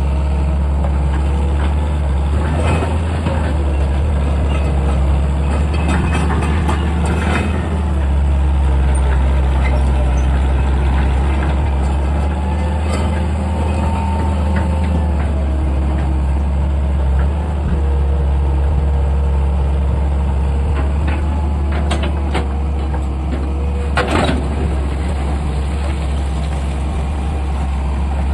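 Excavator's diesel engine running steadily, with a few sharp knocks on top, the loudest about 24 seconds in.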